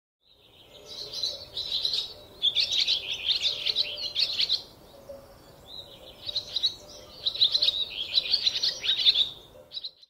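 Birds chirping and twittering in quick, warbling runs of song, four runs with short pauses between, ending abruptly near the end.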